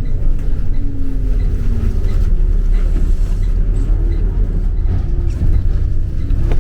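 A vehicle running, with a loud, steady low rumble.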